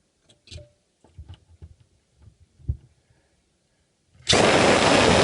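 A few light knocks and clicks of handling, then a power drill starts about four seconds in and runs steadily, pre-drilling a pilot hole for a screw in the cabinet's wood.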